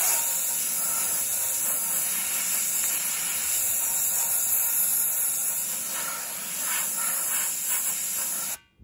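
Harbor Freight Central Pneumatic handheld gravity-feed blast gun hissing steadily as compressed air drives dried used coffee grounds onto a painted steel wheel, with the media flowing freely rather than clogging. The blast stops abruptly near the end as the trigger is released.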